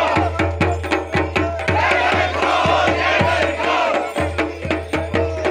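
A crowd of people shouting and chanting over fast, steady drumbeats.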